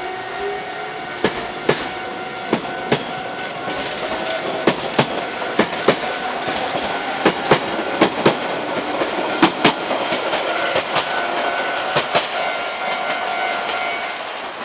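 Hankyu 3000-series resistance-controlled electric train pulling out of a station. A motor whine rises in pitch in the first couple of seconds, then the wheels clack over rail joints in quick pairs as the cars roll past, picking up speed.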